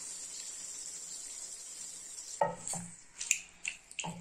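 Raw boneless chicken sizzling in hot oil and masala in a steel pan. About two and a half seconds in, a wooden spatula starts stirring it, scraping and knocking against the pan several times.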